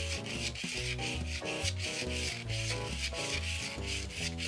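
White pastel pencil scratching across textured pastel paper in quick, repeated sketching strokes, several a second. Background music with bass notes plays underneath.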